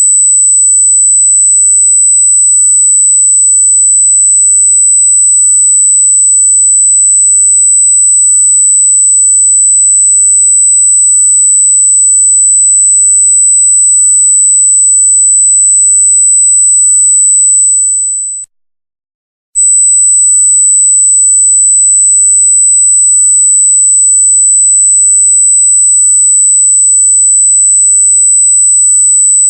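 A single loud, steady, very high-pitched electronic tone. It cuts out for about a second roughly two-thirds of the way through, then resumes unchanged.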